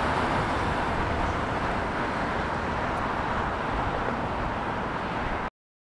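Jet airliner engine noise, a steady rumbling roar that slowly fades as the aircraft moves away, then cuts off suddenly near the end.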